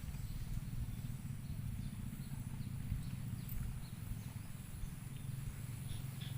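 Hands working a head in massage, rubbing and patting the scalp: a dense low rustling with fast soft taps.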